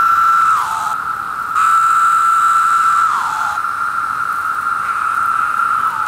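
Periodical cicadas (Brood II) in full mating chorus: a loud, steady buzzing drone. A nearby male's louder call holds one pitch and then slides down at its end, once under a second in and again about three seconds in.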